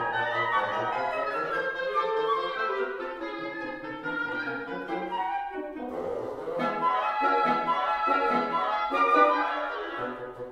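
Wind quintet (flute, oboe, clarinet, bassoon and French horn) playing live, several lines moving together; the sound thins briefly about six seconds in, then the full group comes back in sharply.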